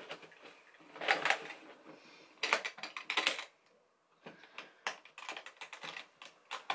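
Aluminium vanity case being shut: its fold-out trays and lid clatter closed in two bursts, then a series of sharp clicks as the metal clasp on the front is worked and fastened.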